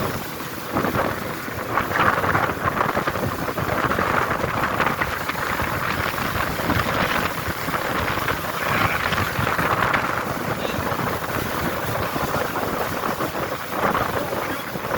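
Wind buffeting the microphone and water rushing and splashing past a moving boat, a loud, steady, gusting noise.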